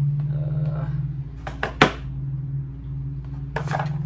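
Metal hand tools clinking as a tool is matched to an engine-mount bolt: a few sharp clicks about halfway through, the loudest among them, and another short clatter near the end, over a steady low hum.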